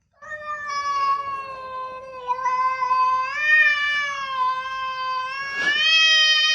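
A cat yowling in one long drawn-out call. The call holds a fairly even pitch and is broken briefly by a short catch near the end.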